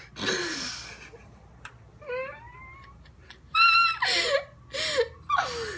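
Girls laughing hard: a breathy burst of laughter, then from about three and a half seconds in, high-pitched squealing giggles broken by gasping breaths.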